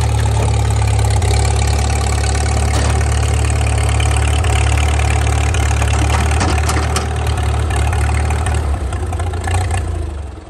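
Farmall H tractor's four-cylinder gasoline engine running steadily at low speed with a deep, even note. It shuts off just before the end.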